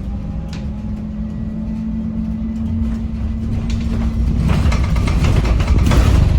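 Bus in motion, heard from inside the saloon: a steady low hum with a faint high whine. About four and a half seconds in, it gives way to a louder rattling rush that builds for around two seconds.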